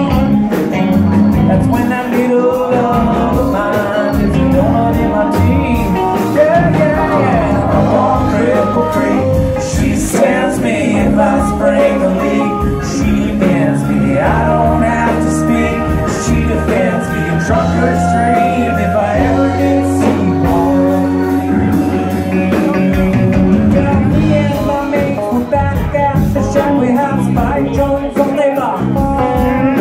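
Live rock band playing: electric and acoustic guitars, electric bass, drum kit and keyboard, loud and steady throughout.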